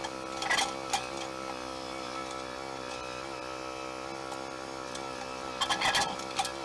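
Shovel digging into soil: a couple of sharp strikes early on and a quick cluster of hits and scrapes near the end, over a steady humming drone.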